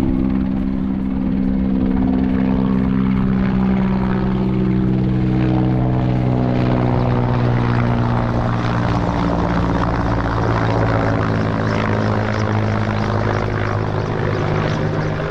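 Steady, loud propeller hum made of several stacked tones that drift slowly in pitch.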